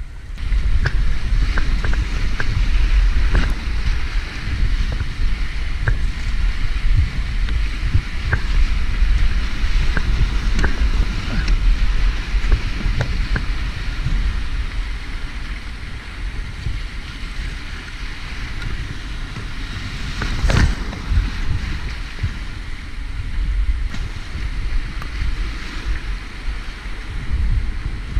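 Whitewater rapids rushing and splashing around a kayak, close to a boat-mounted camera, with a heavy low rumble of water and wind buffeting the microphone and scattered splashes. A single loud splash hits the microphone about twenty seconds in.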